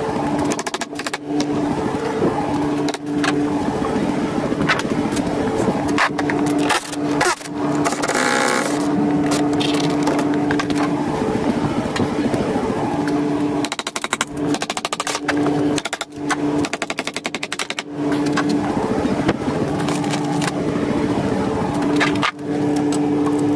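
Handheld cordless power tool run against wood wall framing in repeated bursts: a steady motor hum with fast rattling strokes, stopping and restarting several times.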